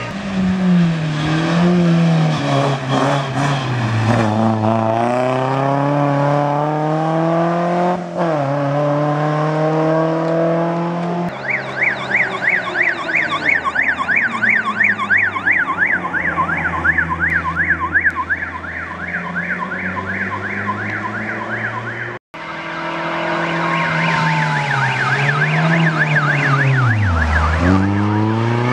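A car engine accelerating hard through the gears, its pitch climbing and falling back at each of several shifts. Then a rally course car passes with a fast warbling siren over its engine. After a brief cut, a second siren-fitted course car slows low for a tight bend and accelerates away.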